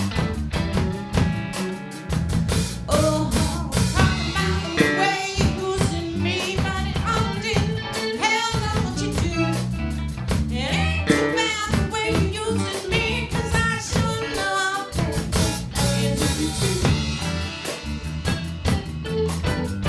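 Band music with guitar, drums and a singing voice.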